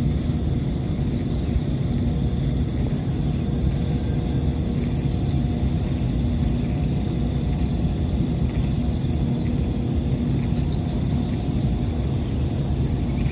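A steady low engine rumble with an even hum that does not change.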